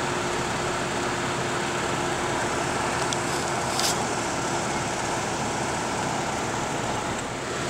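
Fire engine's engine running steadily close by, an even mechanical noise with a steady hum, with one short sharp click about four seconds in.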